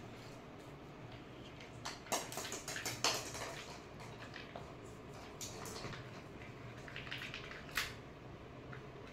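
A hollow plastic toy ball knocked and rolling on a tiled floor as a cat plays with it: scattered light clicks and knocks, a cluster about two to three and a half seconds in and a sharp one near the end.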